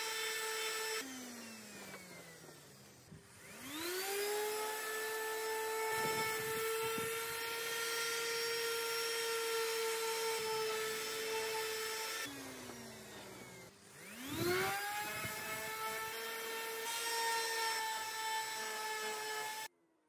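AEG cordless random orbital sander running against the tray's pine sides with a steady high whine. Twice it winds down in a falling pitch and then spins back up to speed. It cuts off abruptly near the end.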